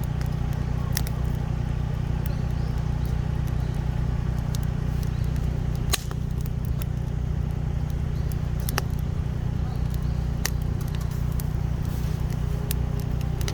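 Campfire crackling, with scattered sharp pops, one louder than the rest about halfway through, over a steady low hum.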